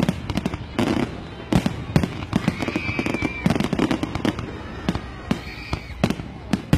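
Fireworks going off: a rapid, irregular string of bangs and crackles, with a high whistle twice.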